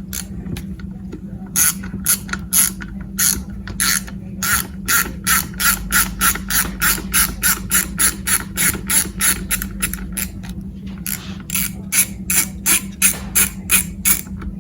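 Socket ratchet wrench clicking in quick, even strokes as small nuts are backed off, about three or four clicks a second, in two runs with a short pause between.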